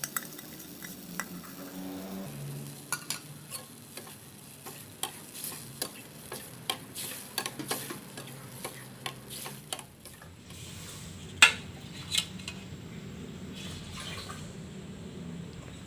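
Soy-based sauce and sautéed ginger sizzling in a stainless steel pan while a utensil stirs, clicking and scraping against the metal many times. About three-quarters of the way through the sound changes to a steadier hiss with two louder metal knocks.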